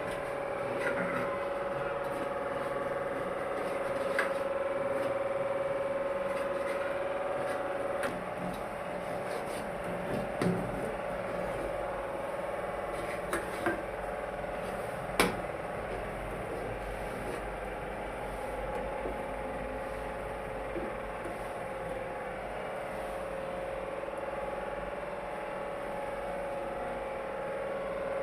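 A spoon stirring a thickening sugar-candy syrup in a cooking pan, with a few sharp clicks of the spoon against the pan, the loudest about halfway through, over a steady hum.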